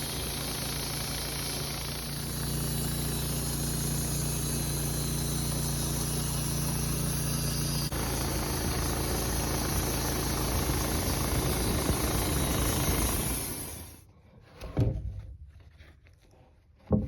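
Woodmizer LT15 band sawmill running steadily as its band blade cuts a 2-inch slab off an alder log. The sound stops abruptly about fourteen seconds in, and two short knocks follow.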